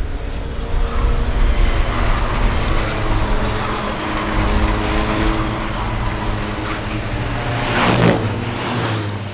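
Touring car racing engines running steadily, with one car passing close by about eight seconds in.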